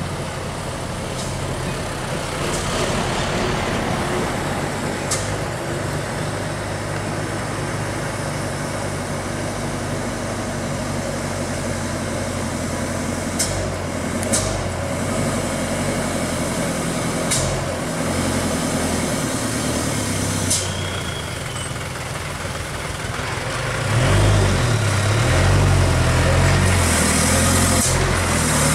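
A large vehicle's engine running steadily, with a few short sharp clicks. It grows louder, with its pitch shifting, about three-quarters of the way through.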